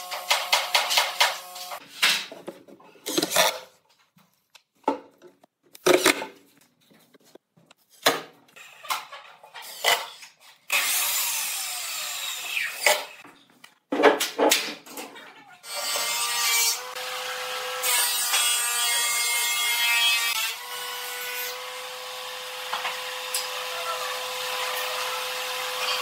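Woodworking on a chair: a series of sharp knocks and short scraping strokes on wood, then a power tool running steadily on the wood for the last ten seconds or so, its pitch holding level.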